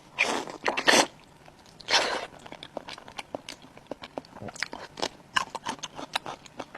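A person eating close to the microphone: three louder, breathy bites or mouthfuls in the first two and a half seconds, then quick, dense chewing clicks.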